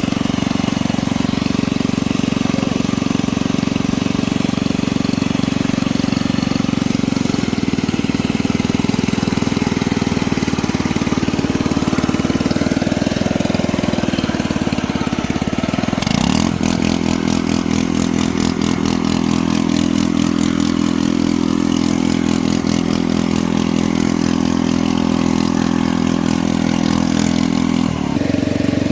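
An engine-like mechanical drone running steadily. About halfway through it changes to a faster, even pulsing, then settles back to the steady drone shortly before the end.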